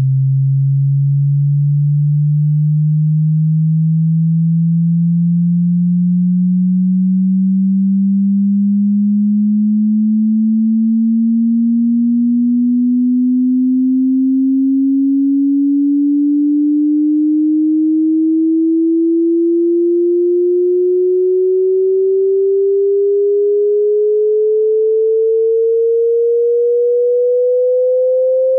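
A pure sine test tone sweeping slowly and steadily upward in pitch, from a low hum to a mid-range tone, at an even loudness: a hearing-test frequency sweep.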